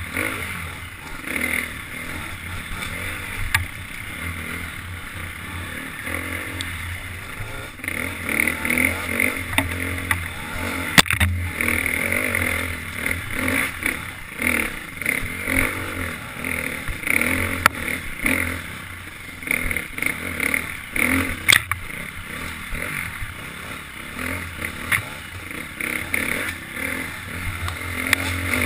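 KTM 350 XC-F dirt bike's single-cylinder four-stroke engine being ridden hard, revving up and down constantly as the throttle is worked, with the rattle of the bike over rough ground and a couple of sharp knocks from bumps.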